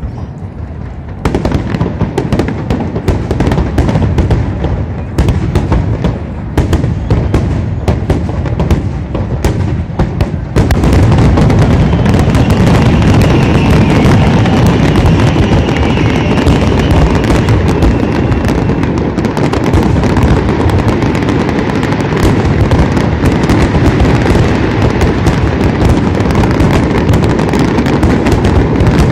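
Fireworks display: a rapid run of sharp bangs and crackling shells, thickening about ten seconds in into a loud, unbroken barrage of crackle and bursts.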